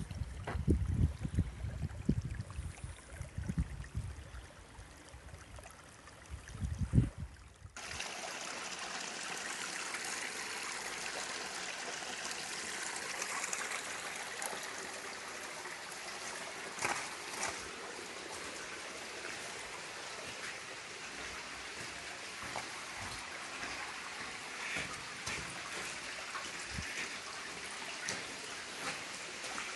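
Mine tailings wastewater flowing through a stone-walled culvert, a steady rush of running water. For the first several seconds wind buffets the microphone, then the water sound comes in abruptly about eight seconds in and holds steady.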